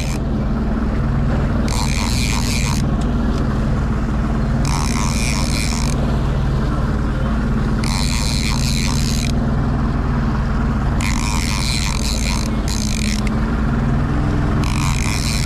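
Boat engine running steadily, a low continuous drone. Over it, a high rasping whir comes in spells of about a second, roughly every three seconds.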